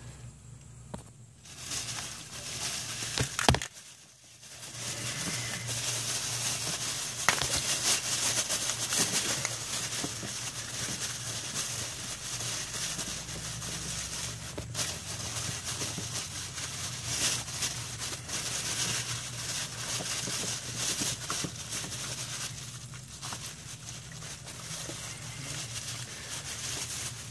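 Plastic bag crinkling and rustling as it is handled over a diesel fuel filter housing to catch fuel while the housing is unscrewed by hand, with a sharp click about three and a half seconds in.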